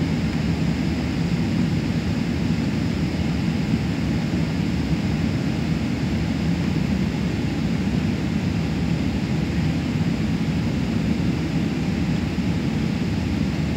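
Steady low rumble of a Boeing 777-300ER airliner, unchanging throughout, as heard from inside the cabin.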